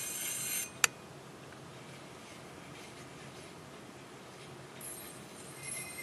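Read/write heads of an opened Western Digital 500 GB hard drive grinding on the spinning, damaged platter, a steady high-pitched scraping whine, a sign the owner takes for heads damaged beyond repair. The grinding stops abruptly just under a second in with one sharp click. After that only a faint hiss of the spinning drive remains, and the high scraping tones come back faintly near the end.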